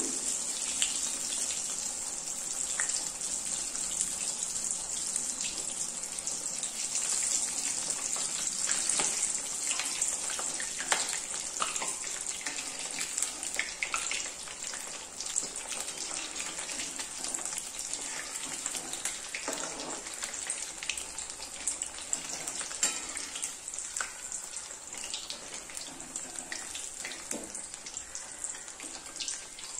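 Kothimbir vadi (coriander and gram-flour fritters) deep-frying in hot oil in a kadhai: a steady sizzling hiss with scattered crackles and pops, slowly getting a little quieter toward the end.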